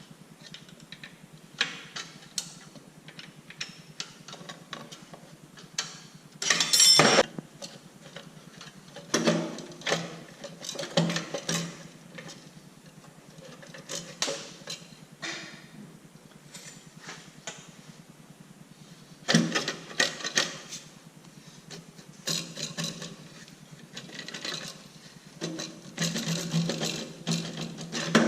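Hand tools at work on a tractor: irregular metallic clicks, knocks and clattering, in scattered bunches with the loudest clatter about seven seconds in.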